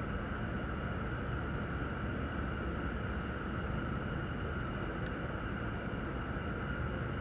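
Steady rushing background noise with a faint steady high hum, and one brief faint tick about five seconds in.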